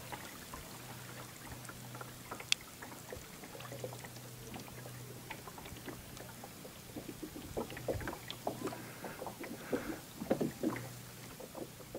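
Kayak paddling: paddle blades dipping into calm water with drips and small splashes, plus light knocks. One sharp click comes about two and a half seconds in, and the strokes grow busier from about seven seconds in.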